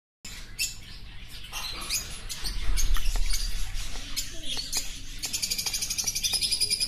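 Many cage birds chirping and calling together in short high notes. About five seconds in, a fast, even trill joins them. A low rumble sounds briefly around three seconds in.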